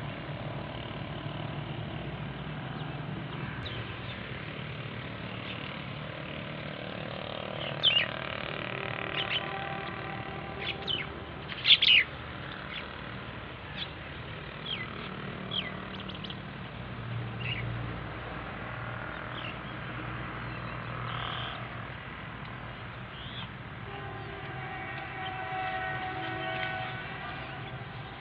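Birds chirping in short, quick calls over a steady low background rumble. The calls cluster in the middle of the stretch, and the loudest come a little before halfway.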